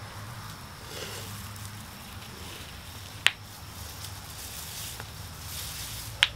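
Hands rustling foliage and working potting soil around plants in a barrel planter, with two sharp clicks about three seconds apart as the loudest sounds. A steady low hum runs underneath.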